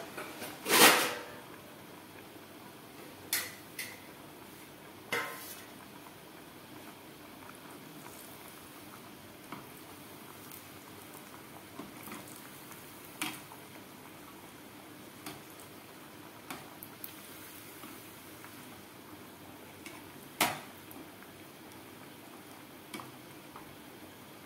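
Sabudana tikkis deep-frying in hot oil in a kadhai, a steady bubbling sizzle. Over it come several sharp metal knocks and clinks as the wire skimmer meets the pan, the loudest about a second in.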